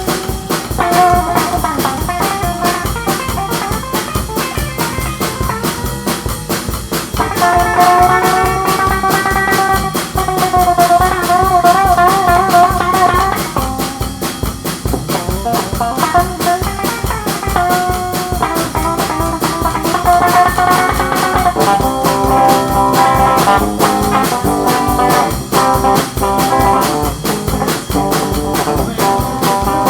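A psychobilly band playing a loud instrumental passage: drums keep a steady beat under guitar and a lead melody with long held notes that waver in pitch.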